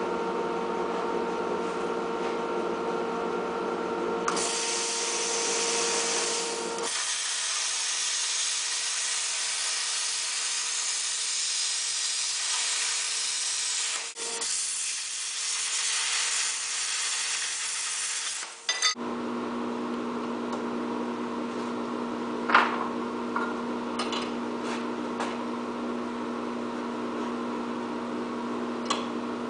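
Angle grinder with a cutoff wheel running, then cutting through steel angle iron in a long hissing cut of about fifteen seconds. After that, a drill press motor runs steadily, with a few sharp ticks.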